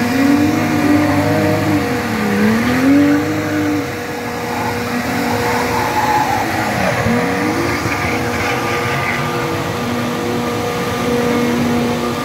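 Drift car engine revving hard and easing off over and over, its pitch rising and falling, with deep drops about two seconds in and again about seven seconds in, as the car slides sideways with tyre noise.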